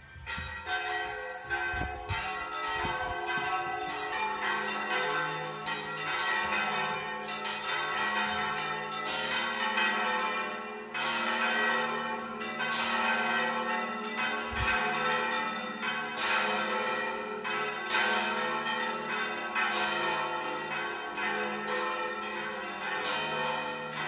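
Several church bells pealing together, their strokes overlapping in a continuous, uneven clangour. A deep steady hum from the larger bells comes in a few seconds in and holds under the strikes.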